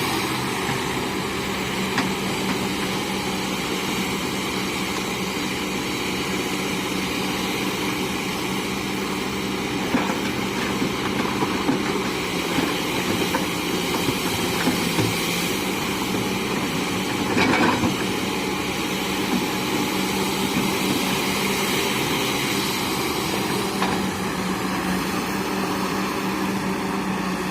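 Heavy diesel engine of earth-moving machinery idling steadily, with a few brief knocks now and then.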